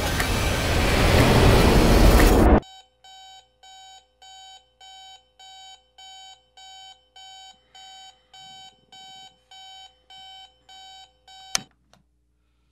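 A loud, rising rush of noise cuts off abruptly about two and a half seconds in. Then a digital alarm clock beeps steadily, about two beeps a second, until a sharp click near the end as it is pressed off.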